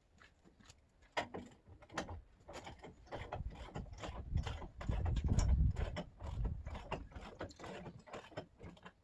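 Truck camper jack being worked to raise the camper off the truck bed: a run of irregular mechanical clicks and clanks, with a heavier low rumble about five seconds in.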